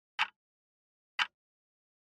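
Countdown-timer tick sound effect: short, sharp clock ticks, one each second, two in all, marking off the seconds.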